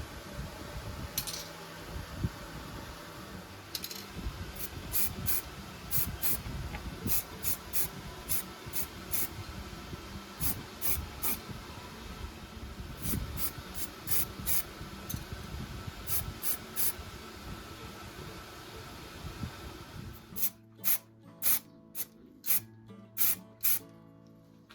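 Background music with short hissing strokes repeating about once or twice a second. Near the end the steady hiss underneath drops away, leaving the strokes cleaner.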